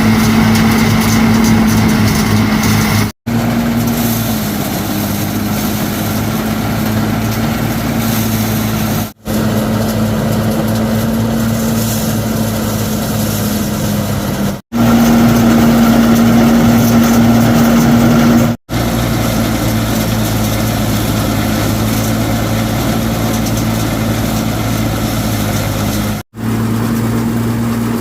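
An engine running steadily at a constant pitch. The sound breaks off abruptly and resumes five times, and the pitch shifts slightly between the pieces.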